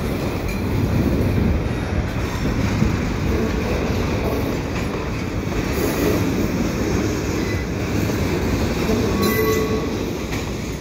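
Double-stack container well cars rolling slowly over the rails as the cut is shoved back, a steady rumble of wheels, with a brief faint wheel squeal near the end.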